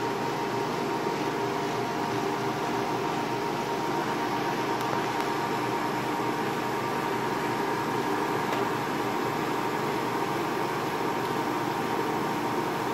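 Portable room air conditioner with its casing removed, running steadily after being switched on: an even whirring with a constant high tone over a lower hum.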